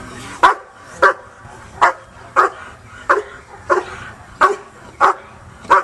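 Young German shepherd barking repeatedly at a protection decoy, nine sharp barks at an even pace of about one every two-thirds of a second.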